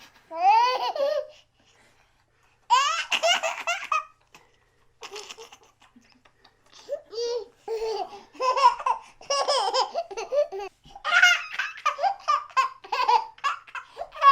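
A baby laughing in bouts: a short squealing giggle, a pause, then a burst of rapid high-pitched laughs, and from about seven seconds in a long run of belly laughs and giggles.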